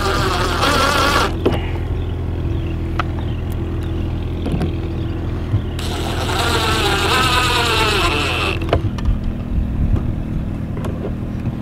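Cordless drill driving into the foam-backed upholstered interior panel. It runs in two bursts, one at the very start and one about six seconds in, with its motor pitch bending as it speeds up and bogs under load. A steady low hum runs underneath.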